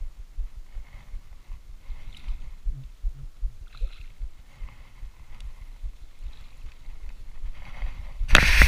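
Footsteps through long grass heard from a body-worn camera, with clothing rustling and low thumps throughout. A loud brushing rustle comes near the end.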